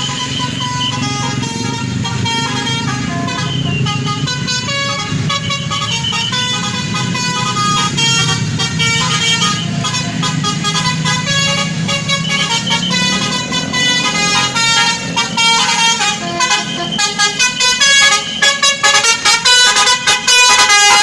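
Tour bus's basuri musical horn playing a quick melody, note after note, over the low running of the bus engine. In the last few seconds the horn turns to rapid staccato toots.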